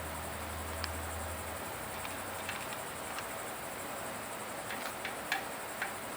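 Small faint clicks of a T25 Torx key and small bolts as a disc-brake rotor's screws are threaded in, over a steady high hiss; a low hum stops about one and a half seconds in.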